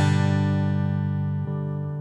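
Fender Acoustasonic Telecaster guitar: a chord strummed right at the start and left to ring, slowly fading.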